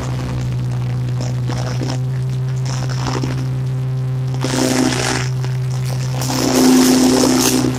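Riding lawn mower engine running steadily while mowing through dry leaves. Hissing rushes come about halfway through and again near the end, as shredded leaves and dust blow out of the deck.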